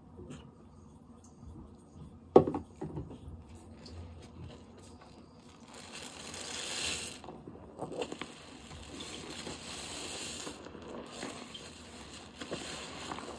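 Close-up handling of dish soap and its containers: a sharp knock a little over two seconds in, then several stretches of hissing, crackling noise lasting a few seconds each.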